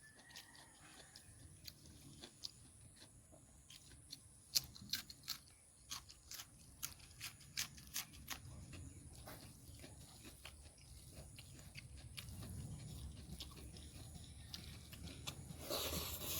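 A person chewing and crunching food, with a run of sharp, crisp clicks between about four and eight seconds in and a short burst of louder noise near the end.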